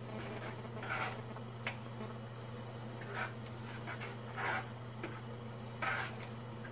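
A spoon stirring and scraping in a pot of thick peanut-butter kare-kare sauce, giving a short scrape every second or so over a steady low hum.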